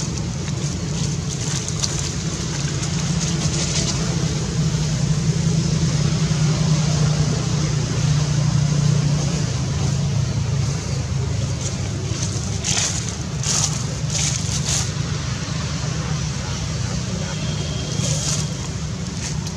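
Steady low drone of a vehicle engine, swelling a little in the middle, with a few short high hisses about two-thirds of the way through.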